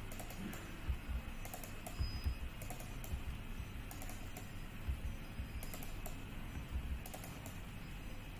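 Computer keyboard keys tapped in short groups of one to three strokes, spaced a second or so apart, as numbers are typed into cells one by one.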